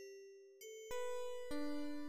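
Background music: a few soft bell-like keyboard notes, then about a second in a louder electric-piano chord with a bass note comes in, with further chords following.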